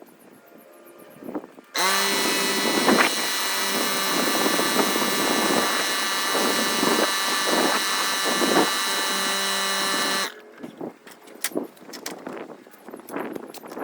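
Electric power tool motor running at a steady speed for about eight seconds, switching on about two seconds in and cutting off abruptly.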